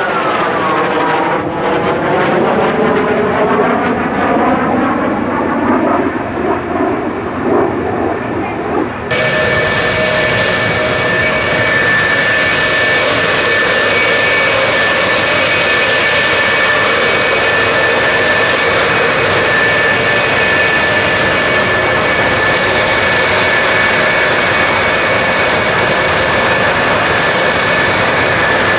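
F-4 Phantom jet passing overhead, its J79 engine noise sweeping down and then back up in pitch. About nine seconds in it gives way suddenly to the steady whine and rush of a parked RF-4E Phantom's J79 engines running, with high steady tones over it.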